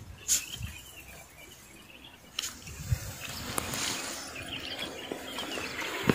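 Open-air ambience with faint, scattered bird chirps and a few sharp clicks.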